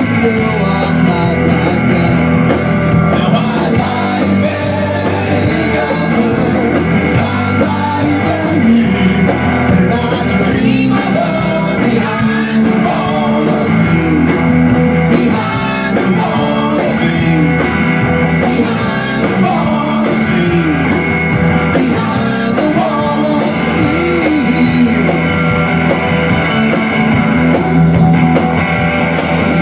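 A rock band playing live: electric guitar, electric bass and a drum kit.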